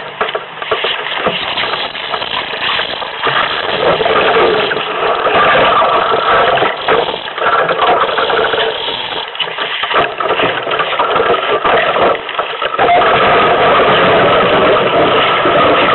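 Iceboat sailing on the ice: a steady rumbling hiss of the runners and the wind, with scattered knocks and rattles from the hull. It grows louder and steadier near the end.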